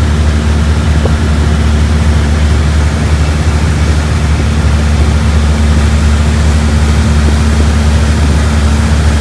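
A loud, steady engine drone with a deep hum under a rushing noise.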